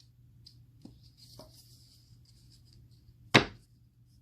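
Oracle cards being handled and shuffled: soft papery rustling with a few small clicks, then one sharp knock about three seconds in.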